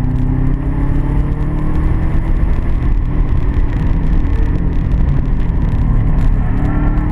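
Car engine running under load at track pace, its pitch climbing slowly over the first few seconds and climbing again near the end, over a heavy, steady low rumble.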